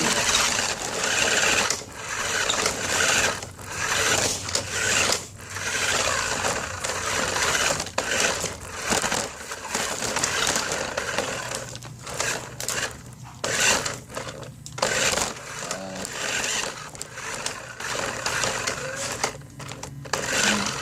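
Small electric motor and gears of a toy RC car whirring in repeated spurts as it is driven around, stopping and starting every second or two.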